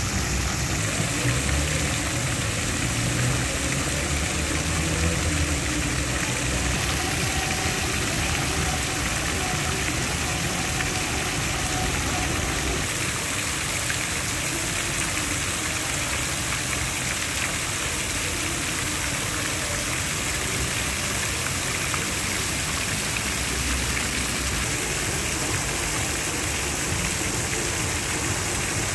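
Steady city street noise: road traffic running past, a low rumble that swells and fades as vehicles go by, under a constant hiss.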